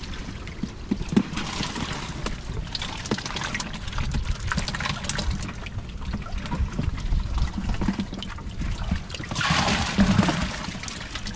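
Water splashing and trickling while fish and water are handled, with scattered small splashes and a louder rush of water near the end.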